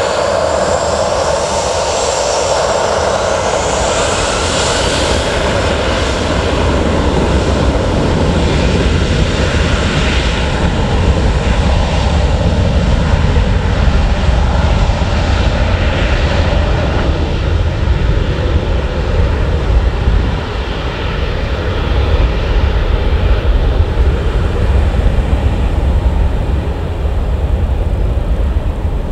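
Boeing 737-800's CFM56-7B jet engines spooling up for takeoff: a whine climbs in pitch over the first few seconds, then loud steady jet noise with a deep rumble as the airliner rolls down the runway.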